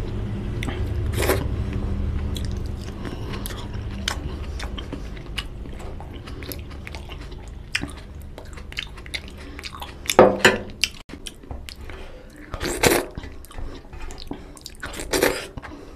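Close-miked eating sounds: chewing with moist mouth clicks, and fingers squishing and mixing rice on a stainless-steel plate, with dal poured from a steel bowl onto the plate. A few louder sharp crackles come in the last few seconds.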